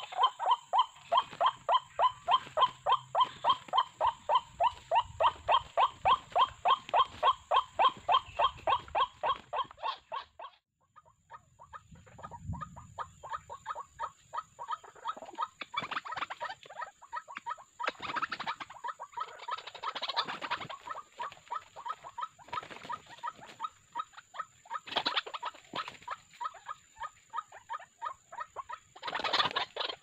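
White-breasted waterhens calling: an even, rapid series of repeated calls, about four a second, that breaks off about ten seconds in. After the break comes a rougher, more irregular run of calls with several louder bursts.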